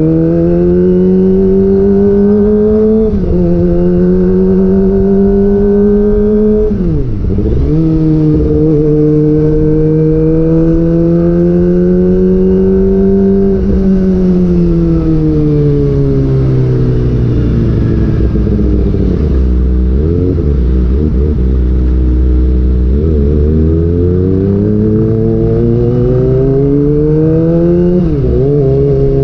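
Kawasaki ZX-25R's 250 cc inline-four running through a DX Generation GPR aftermarket exhaust while riding, its pitch rising and falling with the throttle. It pulls up slowly with a sharp brief dip about seven seconds in, falls away in a long slowdown in the middle, then builds again with another quick dip near the end.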